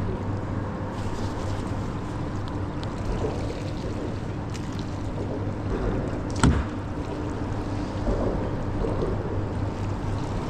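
Boat motor running steadily with a low hum, over water noise; one sharp knock about six and a half seconds in.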